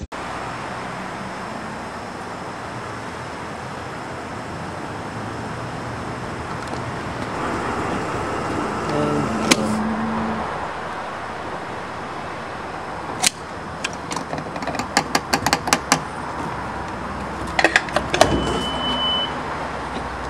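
Refuelling at a gas pump: a steady rushing hiss, then a run of sharp clicks and knocks from the fuel nozzle and pump about two-thirds of the way in, with a short high beep near the end.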